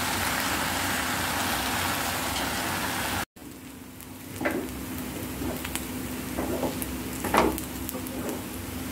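A steady rushing noise for about three seconds, which cuts off suddenly. Then a wooden spatula stirs and scrapes vegetable pulao around a non-stick pan in a few short strokes over a steady low hum. The loudest scrape comes about seven seconds in.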